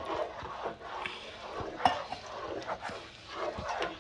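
A spatula stirring a thick creamy sauce with diced tomatoes in a nonstick skillet: irregular wet scraping and sloshing against the pan, with a sharp click a little before two seconds in.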